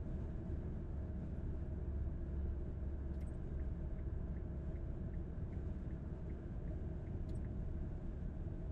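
Steady road and engine rumble of a moving car, heard from inside the cabin. A little after three seconds in, a faint, even ticking starts at about two or three ticks a second, with a sharp click as it begins and another near the end.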